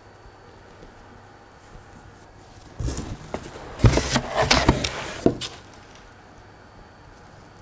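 Hands rummaging in a cardboard box: a burst of rustling and knocks lasting about two and a half seconds, in the middle.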